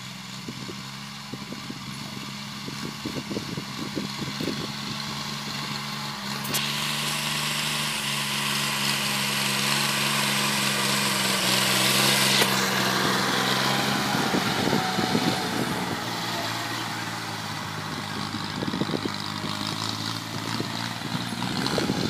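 A tractor engine running steadily, growing louder as the tractor draws near past the middle. A hiss rises over it about a third of the way in and cuts off suddenly just past the middle.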